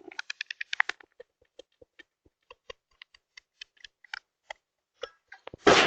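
A string of light, separate clicks and taps, two or three a second, unevenly spaced. Near the end, a loud, steady rush of noise starts abruptly.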